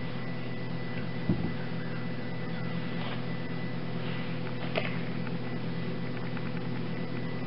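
A freshly cut bar of cold process soap is handled at a single-wire soap cutter, making a soft thump about a second in and a faint click a few seconds later. A steady background hum runs underneath.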